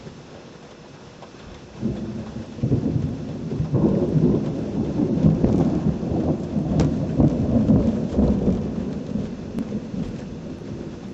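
A peal of thunder breaks out about two seconds in, rumbling loudly for several seconds before slowly fading, over steady rain.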